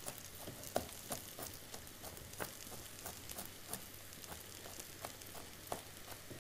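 Knife chopping walnuts on a plastic cutting board in light, irregular taps, about two a second, over a faint steady sizzle of a spinach and onion filling frying in a pan.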